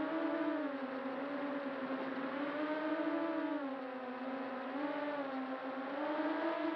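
FPV quadcopter's motors and propellers whining steadily, the pitch slowly rising and falling as the throttle changes.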